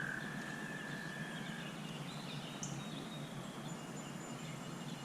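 Outdoor ambience: a faint steady background hiss, with a steady high buzz that fades out a little under two seconds in and a few faint bird chirps after it.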